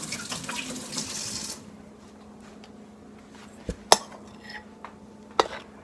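Water running from a sink tap as hands are washed, a steady hiss that is shut off about a second and a half in. A few sharp clinks and knocks of kitchenware follow, the loudest about four seconds in.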